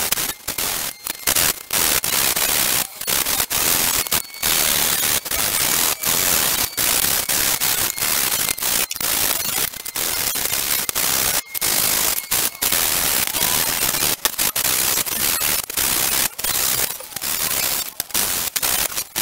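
Sanding the end of a wooden slat by hand with a sanding block: a loud, scratchy rasp of abrasive on wood in quick back-and-forth strokes, broken by many short, irregular pauses.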